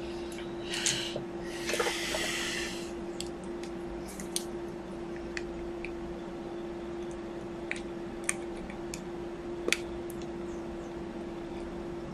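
Hands and a hand tool handling a small circuit board inside an open receiver chassis: a brief rustle about a second in and again around two seconds, then scattered sharp clicks and taps, over a steady hum.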